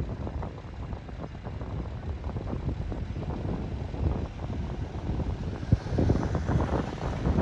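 Road and engine noise of a moving car heard from inside the cabin: a steady low rumble with irregular bumps, heavier from about five and a half seconds in.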